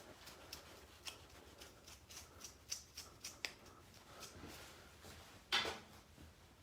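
Faint, irregular metal clicks and light scraping of hand tools working a steel plate, as threads are tapped by hand, with one louder scrape about five and a half seconds in.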